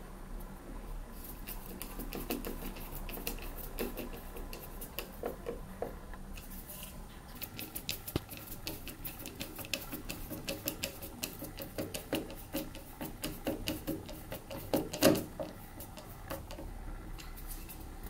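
Screwdriver driving a screw through a mirror mounting plate into the wall: a run of quick, irregular clicks, densest in the middle, with a louder knock near the end.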